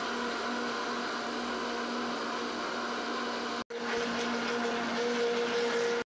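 Countertop blender motor running steadily, whirring through a thin liquid batter of eggs, water, yeast, sugar and melted margarine. It breaks off for an instant a little past halfway, then goes on slightly louder.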